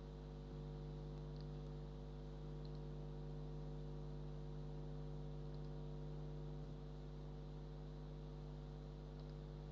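Steady electrical mains hum, a low buzz made of many even tones, with a few faint light ticks.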